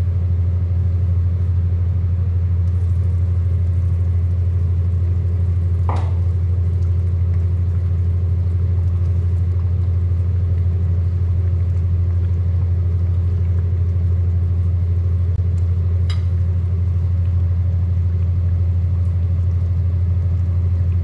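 A loud, steady low hum, with a short clink about six seconds in and a sharp click about sixteen seconds in.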